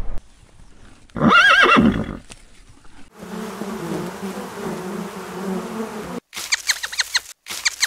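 A short, loud, wavering animal cry about a second in. Then a honeybee colony on the comb buzzing steadily for about three seconds. Near the end, rapid repeated bird squawks.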